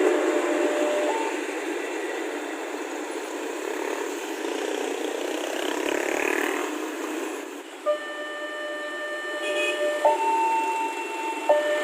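Passing train's rumble fading away. Behind it, then plainly once the train has gone, a level-crossing warning alarm sounds two steady electronic tones, alternating about every second and a half, with a single sharp click as the rumble ends.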